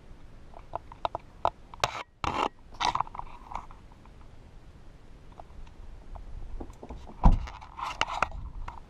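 Handling noise of a handheld camera being moved around a car interior: scattered clicks, knocks and scrapes, with a single loud thump about seven seconds in.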